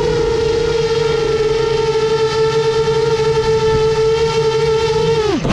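The motors of a 7-inch FPV quadcopter whine at a steady high pitch, then the pitch falls sharply and cuts off near the end as the motors spool down and stop.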